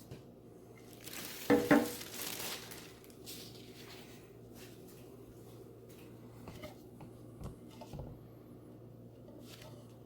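Unpacking and handling a turntable platter: a short ringing metal clank about a second and a half in, a rustle of packing material right after, then a few light knocks and clicks.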